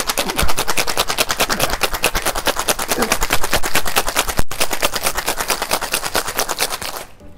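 Ice rattling hard inside a copper tin-on-tin cocktail shaker being shaken vigorously: a fast, even rhythm of hits. It breaks off for a split second near the middle and stops shortly before the end.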